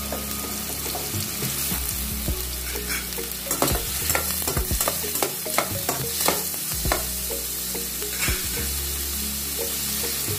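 Chopped onions frying in oil in a stainless steel kadai, sizzling steadily. A perforated steel ladle stirring them scrapes and clicks against the pan, most often in the middle stretch.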